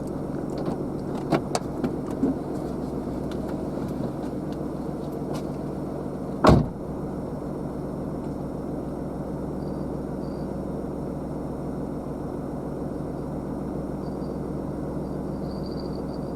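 An engine running steadily, a low even drone, with a few sharp clicks in the first couple of seconds and one loud knock about six and a half seconds in.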